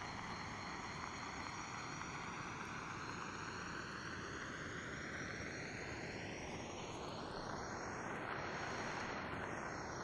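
An aircraft passing overhead: a steady, broad rumbling rush with a sweeping, phasing quality that is loudest about eight or nine seconds in. Steady high-pitched night insect calls sound under it.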